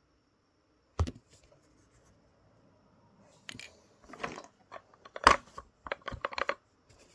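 Wooden and plastic toy pieces knocked and clacked together as they are handled: a sharp knock about a second in, then a quicker run of clicks and clacks in the second half.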